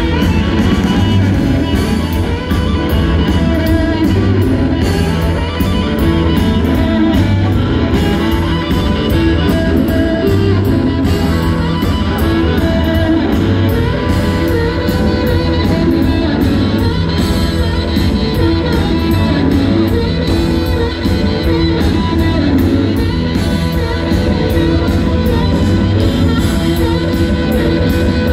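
Live electric blues band playing loudly and without a break: electric guitars, bass guitar and drums, with the frontman playing harmonica cupped to his microphone.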